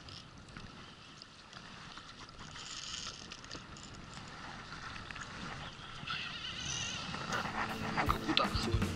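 Wind and water noise around a small inflatable boat while a hooked fish is played on a baitcasting reel. Near the end comes a run of sharp clicks as the loosely set drag slips.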